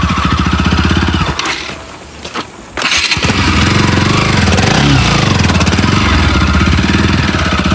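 Motorcycle engine running with a fast, even pulsing beat. It drops away for about a second and a half around two seconds in, then comes back loud and steady.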